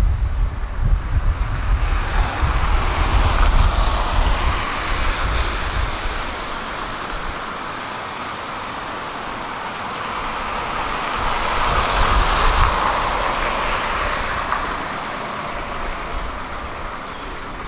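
Two vehicles passing by one after another on a street, each a rush of tyre and engine noise that swells and fades away, with a low wind rumble on the microphone at the start.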